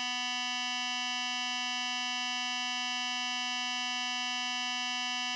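Synthesized sound-effect tone: a steady, buzzer-like electronic hum with many overtones, held at one pitch without any change.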